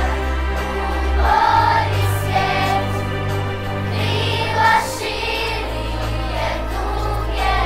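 Children's choir singing together over instrumental accompaniment with a low bass line that changes note about one and a half seconds in and again about five seconds in.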